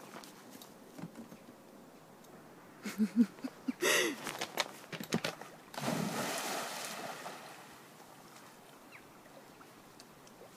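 A German Shepherd's paws thudding on a wooden jetty in a quick run of knocks, with a short cry about four seconds in, then a big splash about six seconds in as the dog hits the lake, the water churning and fading over a second or two.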